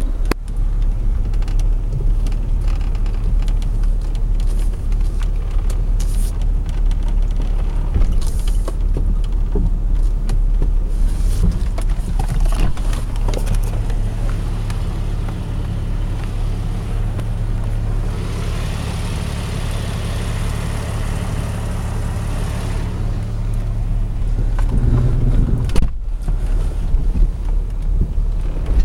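Jeep Grand Cherokee driving off-road: steady low engine and road rumble, with scattered knocks and rattles from the rough ground and a hissing stretch about two-thirds of the way through.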